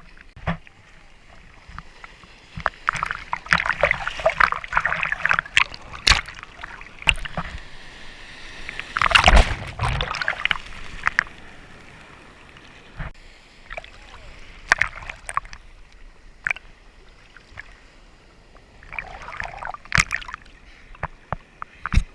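Ocean water sloshing and splashing close to the microphone, with scattered sharp clicks and a louder rush of water about nine seconds in.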